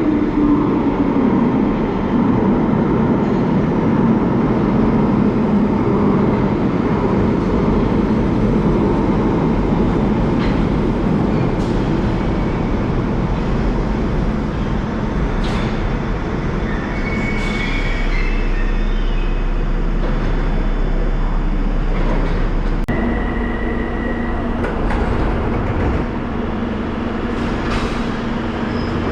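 A London Underground 1972 Stock tube train in a station: steady rumble and wheel noise throughout, with a falling whine in the first couple of seconds and a steady tone and hum setting in about three-quarters of the way through.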